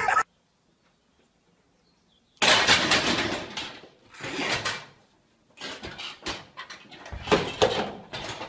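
Loaded barbell tipping off one side of a gym rack, with weight plates clanging and the bench and a falling body thudding. It comes as a run of loud, noisy bursts starting about two and a half seconds in, after a near-silent gap.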